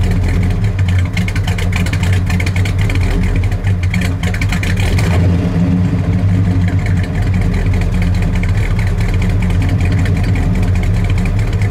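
A 426 cubic-inch Hemi V8 in a 1967 Dodge Coronet R/T idling steadily, heard at the tailpipe.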